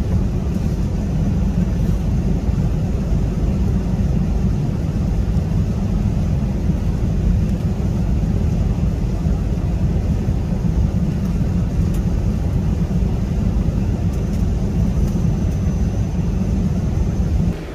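Airliner cabin noise: a steady, loud low rumble of engines and airflow, unchanging throughout.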